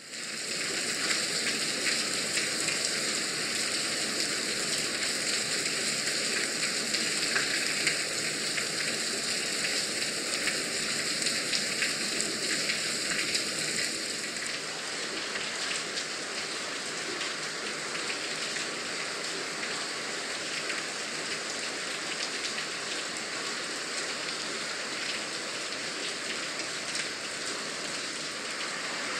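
Steady heavy rain falling, with a dense patter of individual drops hitting a surface. The sound becomes slightly quieter and changes a little about halfway through.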